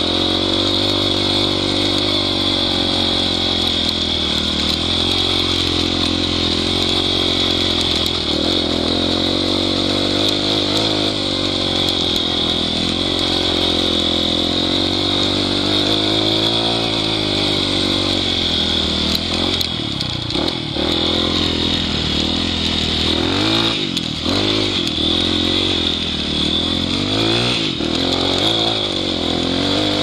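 Trail motorcycle engine pulling hard up a rough dirt hill, its revs rising and falling with the throttle, with several quick rev swings in the last third.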